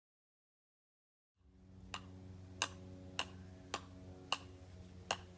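After about a second and a half of silence, a faint, even ticking starts, about three clicks every two seconds, over a steady low hum.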